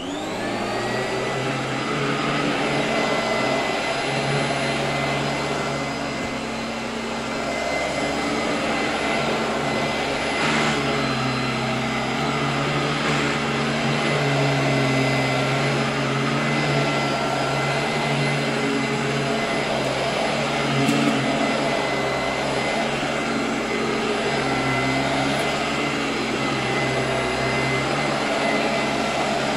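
Royal 18-inch vacuum cleaner switched on, its motor spinning up with a rising whine over about a second, then running steadily as it cleans. A few brief clicks from picked-up debris come through, the clearest about ten seconds in and again about twenty-one seconds in.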